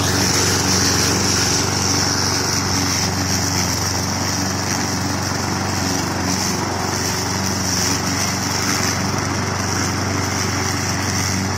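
Petrol walk-behind rotary lawn mower running steadily while being pushed across a lawn, cutting grass, with an even engine hum and a high whine.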